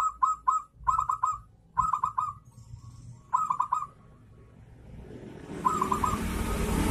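Zebra dove cooing in quick groups of short, rapid notes, the perkutut 'kerot' song, with a pause before a last short group near the end. A rushing background noise swells from about five seconds in and is loudest at the close.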